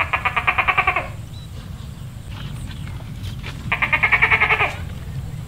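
Two animal calls, each about a second long and made of rapid trembling pulses, about fourteen a second: one at the start and one near four seconds in, over a steady low rumble.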